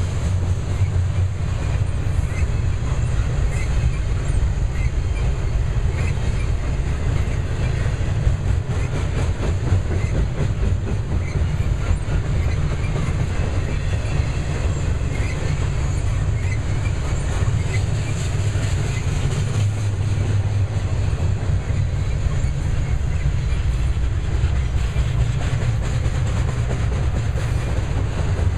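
Loaded double-stack intermodal well cars rolling past: a steady low rumble of steel wheels on the rails.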